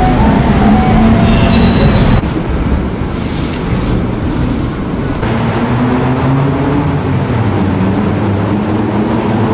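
Steady low rumble of city traffic and a passing train, with a slow rising whine in the second half. The sound drops a little about two seconds in.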